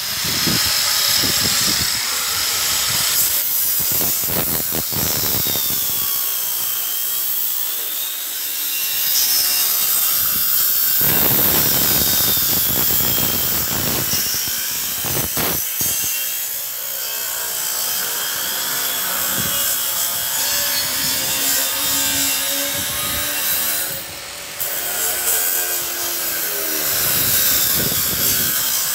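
Angle grinder cutting through a steel beam: a steady, loud grinding whine whose pitch slowly sinks and rises as the disc bites. It eases off briefly about twenty-four seconds in, then cuts on.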